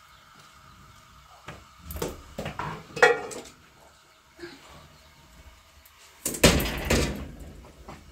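A series of sudden knocks and bangs in two clusters: a few about two to three seconds in, then a louder bang about six and a half seconds in.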